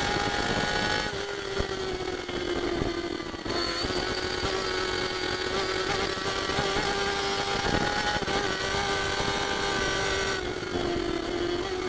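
A Honda CBR1000RR superbike's inline-four engine at high revs at racing speed, heard from the onboard camera with wind rushing over the microphone. The note holds a high, nearly steady pitch and steps in level about a second in, about three and a half seconds in, and again near the end.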